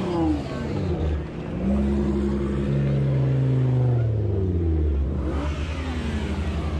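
Cars driving slowly past one after another: a Nissan GT-R, a Volvo S60 and a BMW 6 Series. One engine note holds steady and loud through the middle, then drops in pitch as the car goes by, and the next car's engine comes up near the end.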